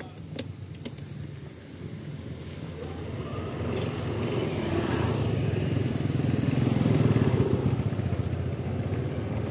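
A motor vehicle's engine running and growing louder over several seconds, loudest about two-thirds of the way in, then easing slightly. A few light knocks in the first second.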